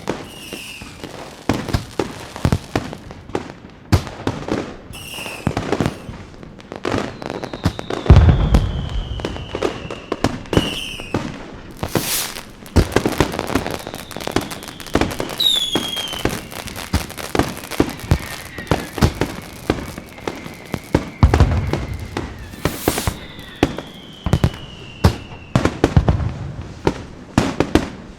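Fireworks going off in quick succession: dense crackling and popping, deep booms about eight seconds in and again near twenty-one seconds, and several whistling shells whose pitch falls as they fly.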